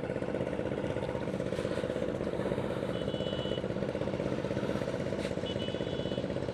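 A steady engine drone with a fine, rapid flutter, typical of heavy machinery or traffic at a highway and bridge construction site. Two short, faint high-pitched tones sound about three and five and a half seconds in.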